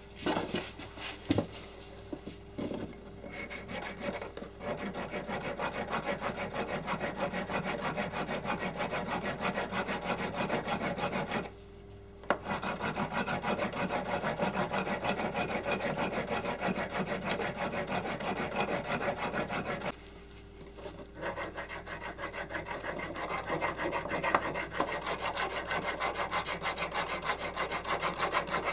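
A freshly cast aluminium bottle opener being hand-filed: quick, continuous rasping strokes that stop twice for about a second, with a few sharp knocks at the start.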